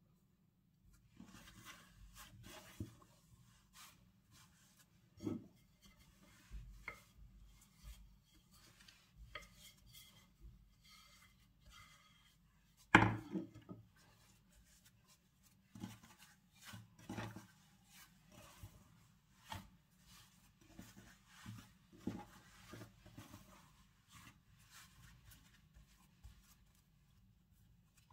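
Food preparation on a kitchen work surface: irregular light knocks, taps and rubbing, with one sharper knock about halfway through.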